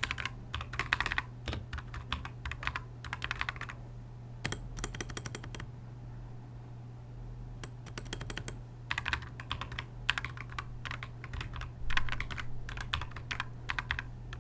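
Typing on an AKKO 5075B Plus mechanical keyboard with AKKO V3 switches: quick runs of keystroke clicks, with a pause of about three seconds in the middle before the typing picks up again.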